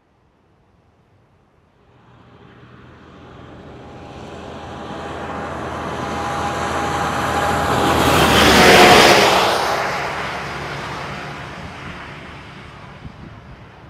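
A vehicle driving past close by: its noise builds slowly, peaks about nine seconds in and fades away, its pitch dropping as it passes.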